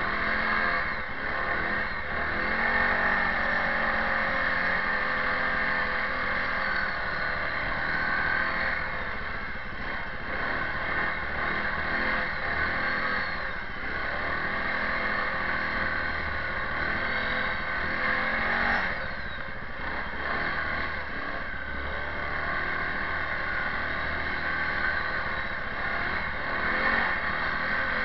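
Kawasaki 360 ATV engine running under load as the quad pushes through deep snow, its revs rising and falling.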